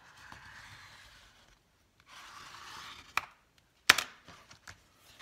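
Hand rubbing and pressing along paper and fabric, smoothing a freshly glued journal inside cover: two stretches of soft scraping rustle, then two sharp knocks about three and four seconds in, the second the loudest.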